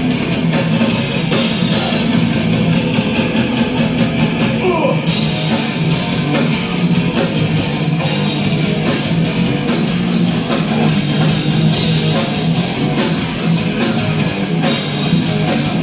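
Live thrash metal band playing a loud instrumental stretch of a song: distorted electric guitars over fast, driving drums.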